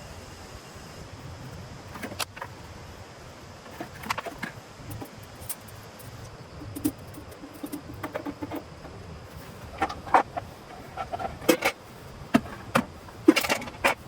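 Irregular light clinks and knocks of objects being handled, a few scattered through the first half and more of them in the last few seconds, the loudest near the end, over a steady background hiss.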